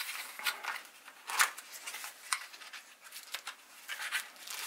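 Brown kraft cardboard box flaps being opened and handled by hand: irregular light scrapes and taps of cardboard, the sharpest about a second and a half in.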